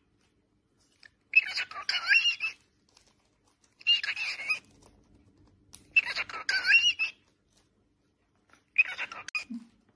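Lutino cockatiel singing its whistled song: four short warbling phrases of gliding whistles, each about a second long, with short pauses between them.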